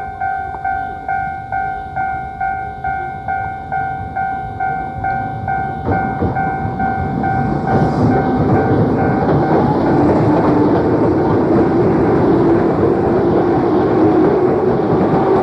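Japanese railway level-crossing warning bell ringing in a steady repeating ding at about three strokes a second. About six seconds in, a Keio Inokashira Line train comes through the crossing, its wheels and running noise swelling to the loudest sound while the bell keeps ringing beneath. Heard through a worn cassette recording.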